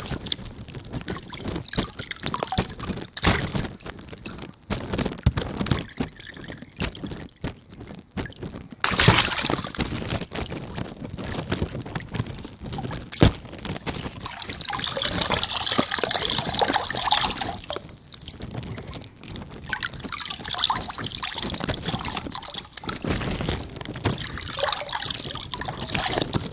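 Water balloons bursting with a few sharp pops, water pouring and splashing out of them between the pops.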